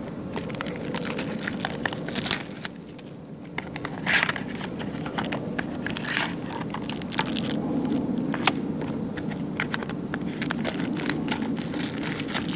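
Clear plastic wrapping on a trading card box crinkling and crackling in the hands as the box is unwrapped, many sharp crackles throughout, over a steady low background hum.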